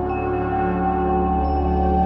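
Ambient background music: a sustained drone with layered held tones, a new high tone entering at the start and another about one and a half seconds in.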